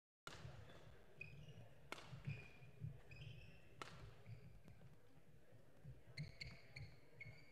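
Sports shoes squeaking in short high chirps on an indoor court floor, with two sharp racket hits on a shuttlecock about two seconds apart, over a low hall rumble.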